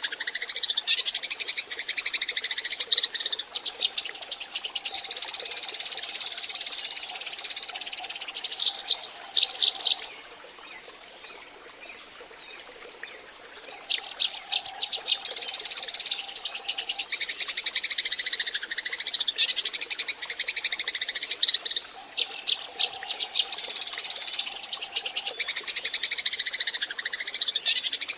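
A flock of Eurasian tree sparrows chirping densely and rapidly, played as a lure call to draw wild sparrows in. The chirping stops for about four seconds near the middle, then starts again.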